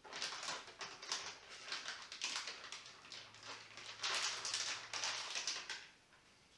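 Rustling and rubbing of rubber-gloved hands handling a soft plastic packet of wipes, in irregular bursts that stop near the end.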